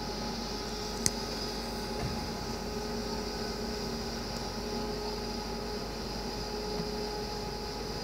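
Loose-fill insulation blowing machine running in the back of a van, a steady machine hum with a constant whine, feeding insulation through its hose up to the roof. A single sharp click about a second in.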